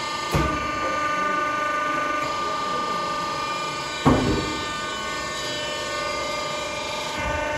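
Electric motor and hydraulic pump of a firewood-cutting machine running with a steady hum and whine. Two sharp knocks, just after the start and about four seconds in.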